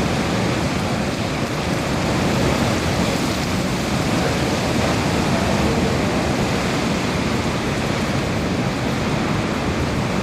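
Hurricane rain and wind: a steady, loud rush of noise with no breaks.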